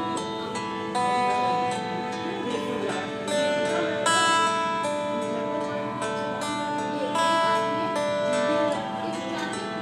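Background instrumental music: a slow melody of held notes changing about once a second.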